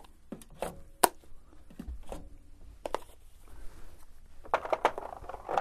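HP 82 plastic ink cartridges being pulled out of an HP Designjet 500/800 ink supply station and handled: a series of short plastic clicks and knocks, with a sharp click about a second in and a denser clatter near the end.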